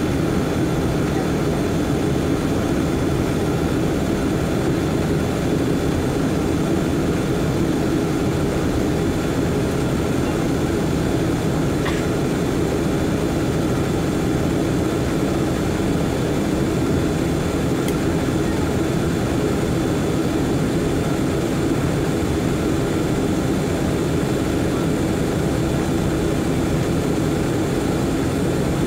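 Jet airliner cabin noise heard at a window seat: the engines and the airflow make a steady, even noise, loudest in the low-middle range, with no change throughout, during the climb after takeoff.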